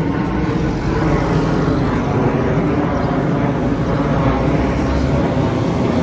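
Steady low rumble of road traffic from the street beside the walkway.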